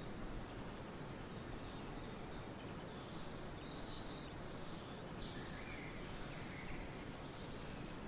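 Steady outdoor ambience hiss with a few faint bird chirps near the middle.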